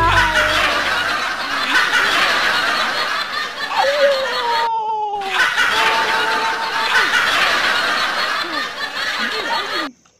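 A group of people laughing, in two stretches split by a sudden half-second gap near the middle, cutting off abruptly near the end.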